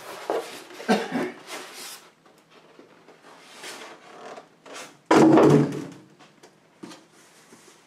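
Styrofoam packing and the cardboard carton being handled: rubbing and scraping as packing is pulled out and the box flaps are moved, with one louder scrape and thump about five seconds in.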